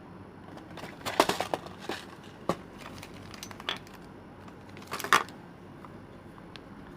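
Small hard objects being handled: a quick run of clicks and clatter about a second in, single clicks a little later, and another short clatter about five seconds in.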